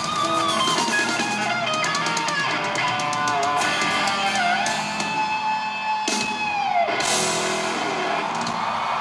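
Live rock band playing: electric guitar over a drum kit. A long held note falls in pitch about seven seconds in, around two loud cymbal-like crashes.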